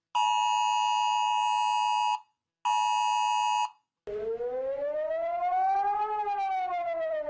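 Emergency Alert System alarm: a steady two-tone attention signal sounds twice, about two seconds and then about one second, followed by a siren tone that rises slowly for about two seconds and then falls.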